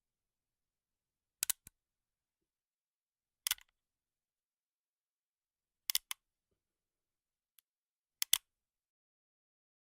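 Sharp mechanical clicks from a weapon sound effect, in four short groups of two or three quick clicks each, a couple of seconds apart.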